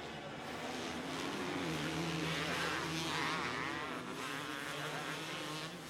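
Several motocross bikes' engines revving hard, their pitch rising and falling, loudest around the middle.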